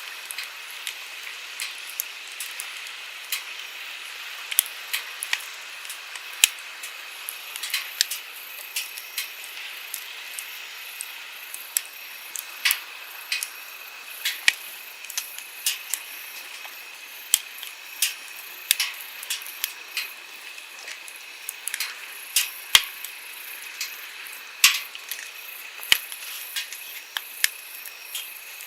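Wood campfire crackling, with frequent irregular sharp pops and snaps, over the steady rushing of a flowing stream.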